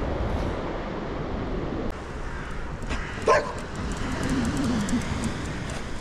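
A dog barks once, sharply, about halfway through, followed by a lower, wavering sound.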